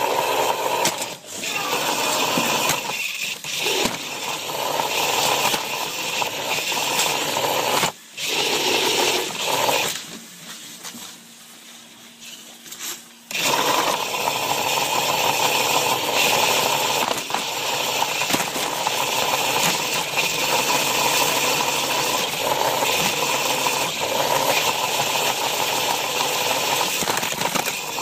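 A small soccer robot's electric motors and gearing running, heard up close from a camera mounted on its chassis, with a steady mechanical whir and rattle. It twice drops away for a moment, the second time for about three seconds midway, then runs on steadily.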